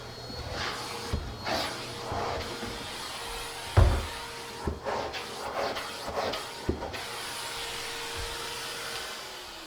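Numatic James commercial canister vacuum running steadily, with several thumps as the tool works the stairs, the loudest about four seconds in. The motor's steady hum drops out near the end.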